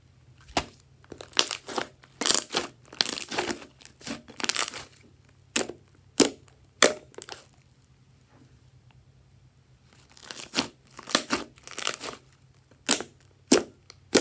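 Thick slime being stretched, torn apart and pressed by hand, giving irregular runs of short sticky snaps and pops, with a quiet gap of about two seconds past the middle.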